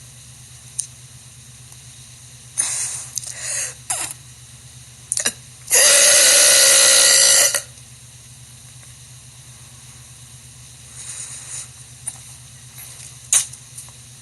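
A woman's long, loud burp, held for nearly two seconds about six seconds in, with shorter, fainter sounds a few seconds before it.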